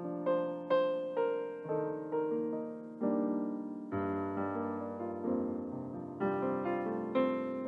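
Solo piano playing a slow, gentle instrumental piece: chords and single notes struck about one to two a second, each ringing and fading.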